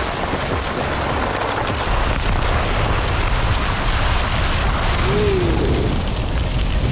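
Wind buffeting the camera microphone while skiing fast down a groomed piste, with the steady hiss of skis running on hard, cold snow. A short wavering tone rises and falls a little after five seconds in.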